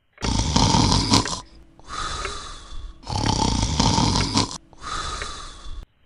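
Snoring: two full snores, each a long rasping breath in followed by a long breath out, each breath about a second and a half.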